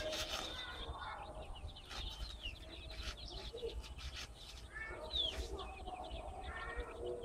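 Chicks peeping: many short, high, falling chirps in quick succession, with a few lower clucking calls from the mother hen among them.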